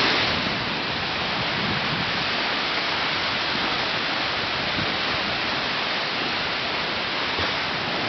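Small waves breaking and washing up over a sandy beach: a steady hiss of surf, a little louder right at the start.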